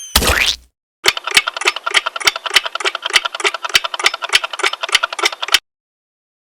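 Cartoon sound effect: a short noisy burst, then a fast, uneven clatter of clicks for about four and a half seconds that stops suddenly.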